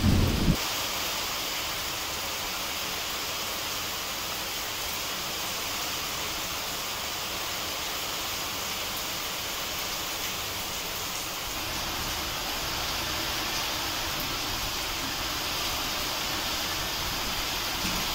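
Steady rain falling, an even hiss of drops on wet ground and standing water, with a brief low thump right at the start.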